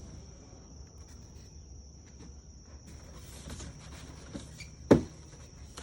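Steady high chirring of insects, with scattered small clicks and rustling of handling work, and one sharp, loud thud about five seconds in.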